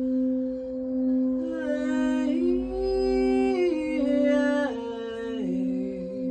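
Singing bowl ringing a steady drone, with a wordless voice toning over it in a few slow, held notes that step up and down, from about a second and a half in until near the end.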